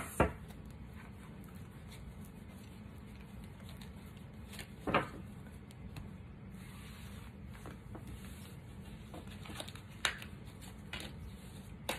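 Quiet handling of tarot cards: a few soft taps and slides as cards are drawn from the deck and laid on the table, one about halfway through and several more near the end, over a steady low hum.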